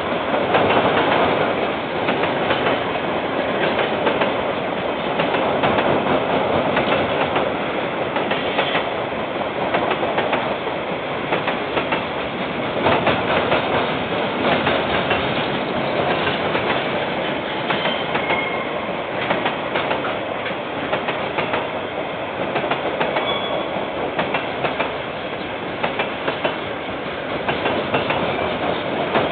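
KiwiRail freight train wagons rolling steadily past, wheels clattering over the rail joints in a continuous run of clicks, with a couple of brief faint high squeals.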